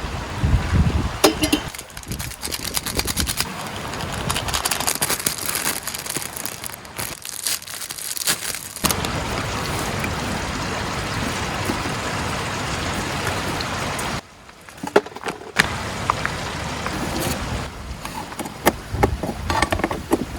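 Steady rush of a river, broken by scattered clicks, knocks and crackles, and cut off abruptly twice.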